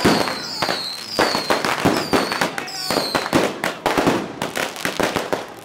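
Boxed ground fireworks cakes going off on the road in rapid bangs and crackling, with short high whistles that fall in pitch, several in the first three seconds.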